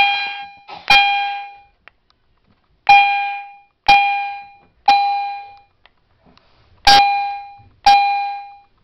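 Fire alarm chime sounding in the temporal-3 evacuation pattern: sharp, ringing, decaying tones struck three times a second apart, then a pause, then repeating.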